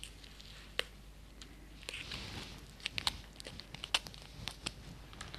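Disposable paper nail form crinkling faintly as it is peeled off an acrylic nail and crumpled in the hand, with scattered small clicks.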